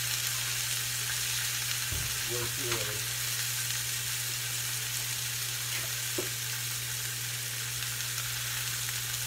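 A thin palomilla steak searing in hot oil in a square copper-coloured frying pan: a steady sizzle, over a low steady hum.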